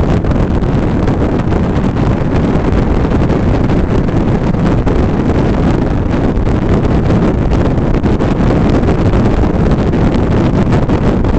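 Loud, steady wind rushing over a roof-mounted Polaroid Cube camera's microphone on a car travelling at 60 to 80 mph, a constant low rumbling noise with no let-up.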